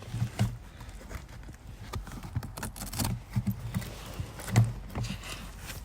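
Irregular handling noise of light plastic clicks and dull knocks as a trim cover under a car's passenger seat is worked and a memory card is fitted into the dash-cam recorder's slot.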